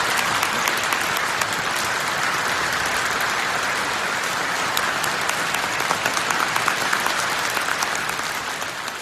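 Audience applauding: a dense, steady clatter of many hands clapping, tailing off near the end.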